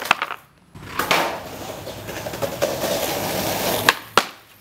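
Skateboard wheels rolling over a concrete driveway, then two sharp clacks near the end as the tail pops and the board hits down a moment later.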